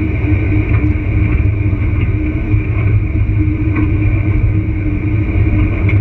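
A vehicle driving on an unpaved dirt road: a steady low rumble of engine and tyres with a constant hum, and a few faint clicks scattered through it.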